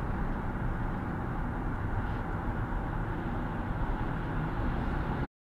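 Steady road and tyre noise with engine hum inside a car cabin at highway speed. The sound cuts out abruptly near the end.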